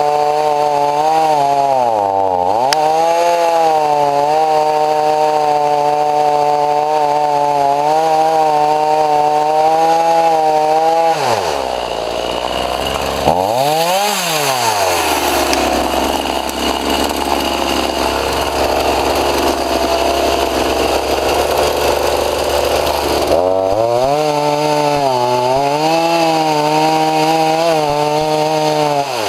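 Two-stroke chainsaw cutting into a large white pine trunk at full revs, its pitch dipping under load. About eleven seconds in it drops to a low idle for roughly ten seconds, then revs back up and cuts again.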